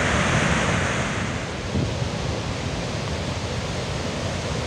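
Steady rush of the Zambezi pouring over Victoria Falls at peak flow, an unbroken wash of falling water, a little softer after about a second.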